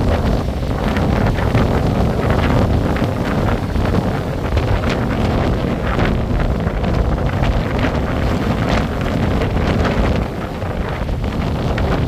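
Strong wind buffeting the microphone in a steady low rumble, with waves breaking on a shingle beach.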